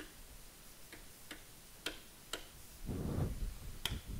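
A series of sharp, irregularly spaced clicks, about six in four seconds, with a short low rustle about three seconds in.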